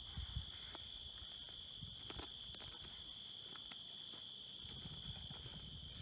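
A steady, high insect trill, typical of crickets, over soft footsteps through leafy plants, with scattered light ticks.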